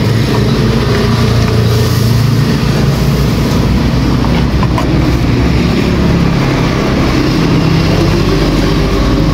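Steady rumble of road traffic close by, mostly engine hum from passing vehicles, with no clear breaks.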